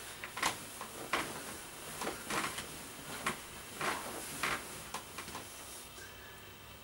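Duvet and bedsheets rustling in a string of soft swishes as someone climbs into bed and pulls the covers over, dying away about six seconds in.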